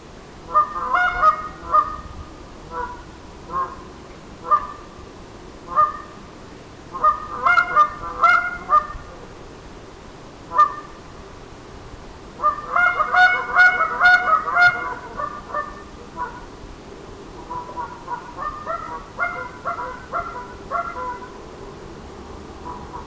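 Ash-wood goose call blown in goose honks and clucks: single spaced honks between fast runs of short notes, the longest and loudest run about halfway through.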